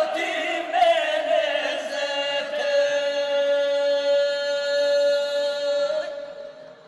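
Men singing a traditional northern Albanian putira song unaccompanied. Their voices hold one long, drawn-out note that fades away near the end.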